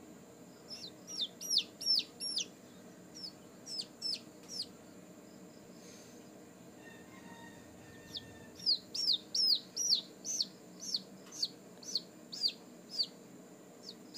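Day-old Rhode Island Red chicks peeping: short, high calls that fall in pitch, a few a second, in two runs with a pause of a few seconds in the middle.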